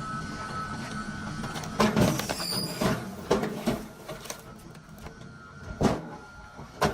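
Irregular knocks and clatter of split firewood pieces, about six sharp knocks spread unevenly over a few seconds, over a faint machine hum.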